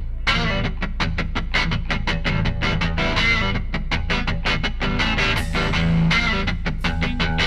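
Background music: fast plucked guitar notes over a steady bass line.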